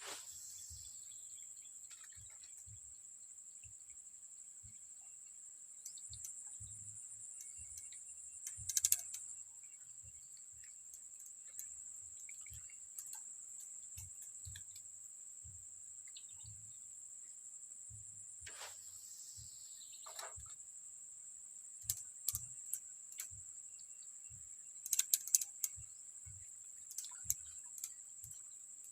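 Steady high-pitched drone of insects, with scattered small clicks and ticks, a cluster of louder clicks about a third of the way in and two more near the end, and two falling swishes, one at the start and one about two-thirds through.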